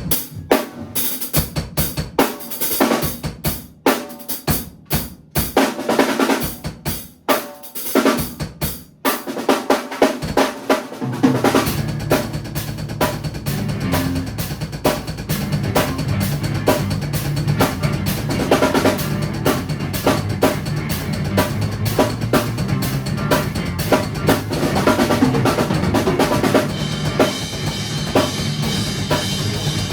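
A drum kit is played in a jam, with kick, snare and rimshot strokes starting abruptly and a few brief breaks over the first several seconds. About eleven seconds in, a second instrument joins with low sustained notes under the drums, and the two play on together.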